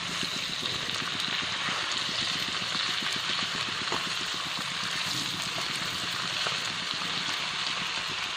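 Chunks of fermented snakehead fish sizzling steadily in hot oil in a frying pan over a low flame, with a fine continuous crackle.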